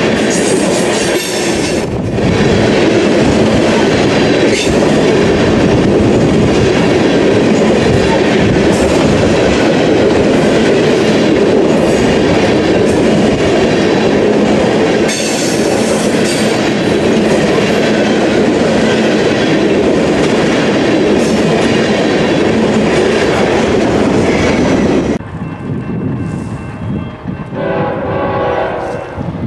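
Empty railroad tank cars rolling past close by at speed, a steady rumble of steel wheels on rail with clickety-clack over the joints. About 25 seconds in it cuts to a much quieter scene, and near the end a diesel locomotive's horn sounds from an approaching freight train in the distance.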